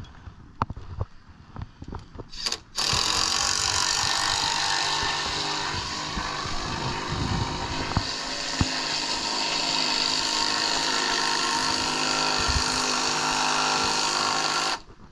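A small motor running steadily with a hissing whir, starting abruptly about three seconds in and cutting off just before the end, after a few light clicks and knocks.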